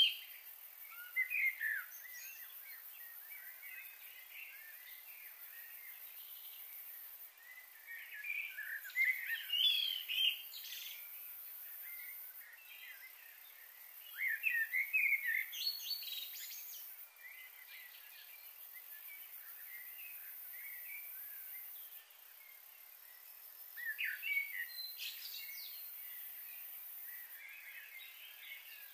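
Birds chirping and calling in four short bouts, over a steady faint outdoor hiss.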